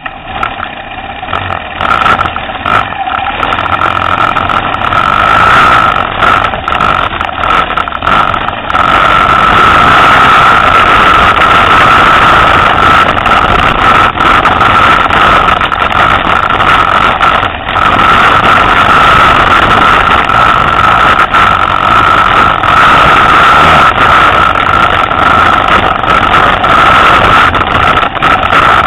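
Motorcycle engine pulling under load up a steep trail, loud and close. It swells over the first few seconds, then holds a steady high-pitched note.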